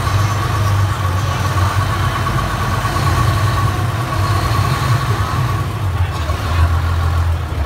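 River shuttle boat's engine running with a steady low hum. A thin steady whine sits over it for the first five seconds or so, and passengers murmur.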